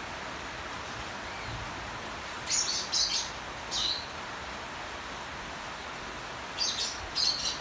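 Cockatiels giving short, high chirps in two clusters, a few seconds in and again near the end, over a steady hiss of rain.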